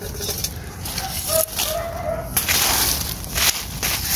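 Dry fallen leaves rustling and crackling as hands search the leaf litter, loudest in a rush a little past halfway, with a few light clicks and knocks. A faint bird call sounds between one and two seconds in.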